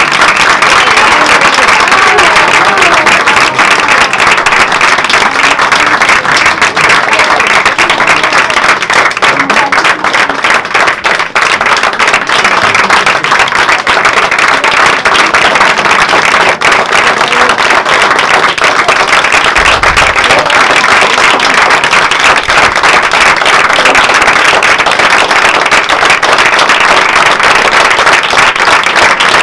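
Theatre audience applauding, dense steady clapping for a curtain call.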